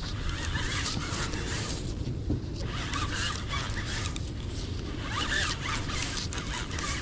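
Conventional fishing reel being cranked in spells during a fight with a sturgeon, a scratchy zipper-like ratcheting that starts and stops several times, over a steady low rumble of wind on the microphone.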